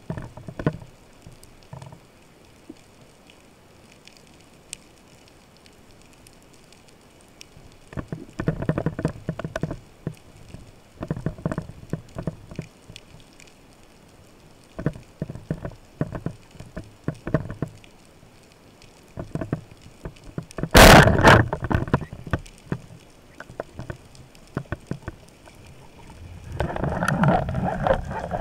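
Underwater sound of a speargun in use: scattered bouts of crackly clicking and rustling, then about two-thirds of the way in a single loud, sharp shot as the speargun fires, followed near the end by a steady louder rushing noise of water moving past the gun-mounted camera.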